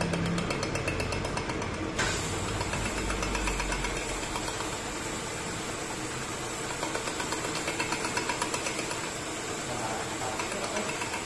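Metal lathe running, spinning a weld-built-up aluminium part in its chuck. The sound is a steady mechanical running noise with a fast regular ticking in the first two seconds, then changes abruptly about two seconds in.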